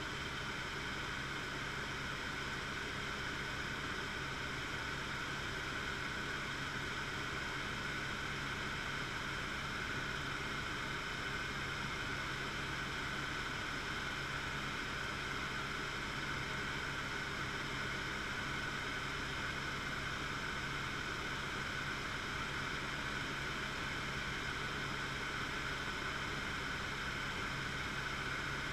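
Steady drone of a helicopter in flight, heard from inside the cockpit: an even hiss with a constant hum under it, unchanging throughout.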